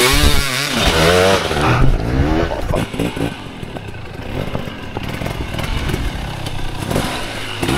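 Hard enduro dirt bike engine revving up and down as the rider works through a rocky section. It is loudest in the first two seconds, then carries on lower with scattered knocks and clatter.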